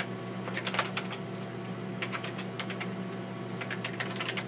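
Keys clacking on a TRS-80 Model 16B keyboard, typed in a few short bursts of several strokes each, over a steady low hum from the running computer.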